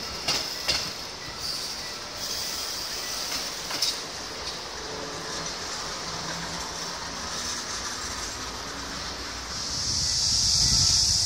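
A train passing over a level crossing, its wheels knocking sharply a few times over rail joints in the first few seconds. A high hiss runs throughout and grows louder near the end.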